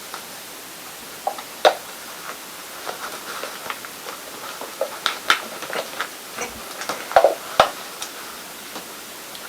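Steady hiss with scattered small clicks and knocks, irregular and sharp, loudest a couple of seconds in and again a little past seven seconds.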